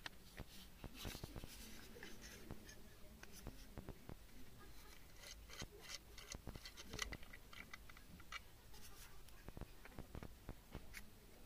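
Faint, scattered clicks and scratches of hard plastic parts being handled: a GoPro camera's mounting fingers being fitted to the mount and thumbscrew of a tripod grip.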